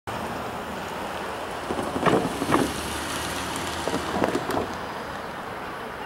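Steady outdoor background noise, with two pairs of short, louder sounds about two seconds and four seconds in.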